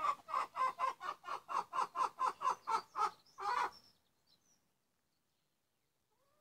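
A chicken clucking in a quick, even run of about four clucks a second, ending on a longer cluck at about three and a half seconds; then it falls quiet, with a faint chirp near the end.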